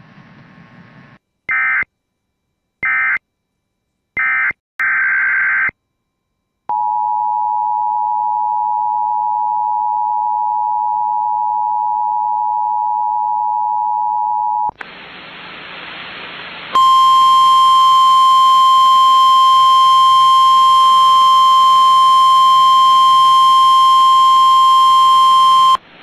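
Emergency Alert System tones. Four short screeching digital data bursts come first. Then the two-tone EAS attention signal holds a steady chord for about eight seconds. After a moment of static, the single-tone 1050 Hz NOAA Weather Radio warning alarm sounds, loud and steady, for about nine seconds.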